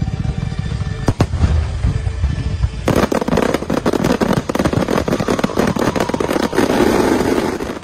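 Fireworks barrage: a steady low rumble of bursts with a few sharp cracks, then about three seconds in a dense run of rapid crackling reports as many shells and rising comets go off together.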